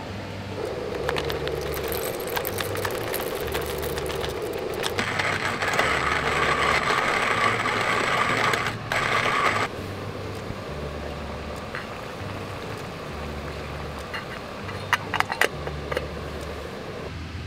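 Hand-cranked cast-iron coffee mill grinding coffee beans: a steady crunching grind that gets louder and brighter in the middle. A few light metal clinks from an aluminium kettle's lid near the end.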